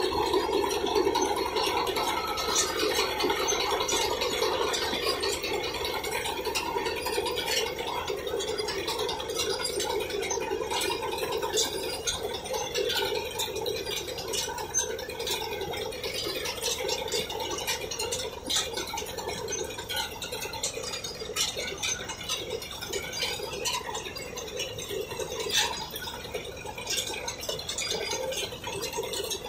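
Mahindra Arjun Novo tractor-mounted harvester cutting standing pearl millet: a steady machine drone with constant rattling and clicking over it.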